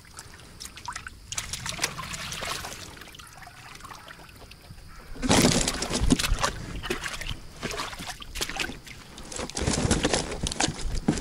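Water streaming and dripping from a mesh keepnet full of carp as it is lifted out of shallow water, with sloshing and splashing. Louder splashing and rustling of wet netting about five seconds in and again near the end, as the net is laid into an inflatable boat.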